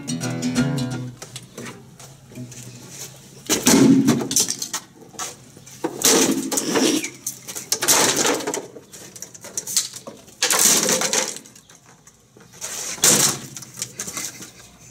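An acoustic guitar is strummed and stops about a second in. Then the guitar is smashed against the pavement and watermelons: five crashes a couple of seconds apart.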